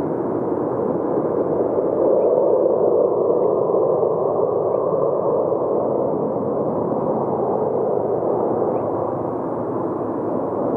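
Jet engines of a landing Boeing 737 airliner, a steady roar that swells about two seconds in as it passes low over the runway to touch down, then eases slightly.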